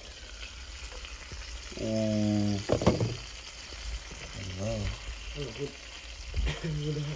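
Goose breast sizzling steadily in a nonstick frying pan, moved about with a utensil, with a sharp clack about three seconds in. A short steady hum comes about two seconds in, and brief voice sounds come near the end.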